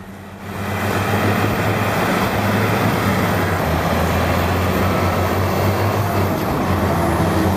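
Caterpillar 657 wheel tractor scraper's diesel engines running steadily with a deep hum as the machine works over a dirt pile, growing louder about half a second in.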